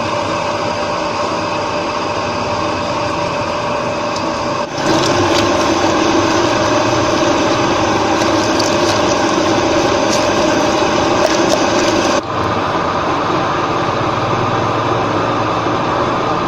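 Electric meat mincer running steadily, grinding spiced chicken into mince for kebabs. The running noise gets louder about five seconds in and drops back a little near the twelve-second mark.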